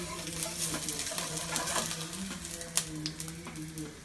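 Corn-batter flatbread frying in a pan: a steady sizzle with a few light clicks, over a low steady tone.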